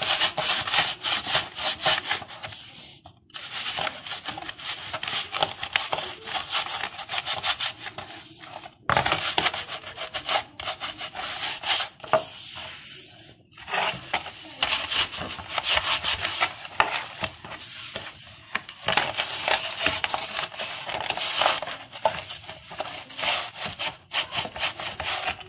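Bare hands scrubbing coarse salt over a greasy kitchen range hood: a fast, gritty rubbing and scraping as the salt scours off built-up grease. It comes in bouts with brief pauses between them.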